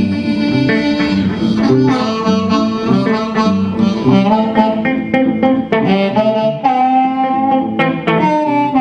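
Blues harmonica solo played into a microphone over an electric guitar accompaniment. The harp plays held, wailing notes, with one long held note about two-thirds of the way through.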